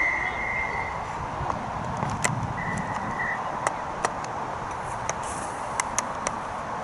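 Referee's whistle blown twice: a steady blast of about a second at the start and a shorter one about two and a half seconds in. Scattered sharp clicks and knocks follow, over a steady background hiss.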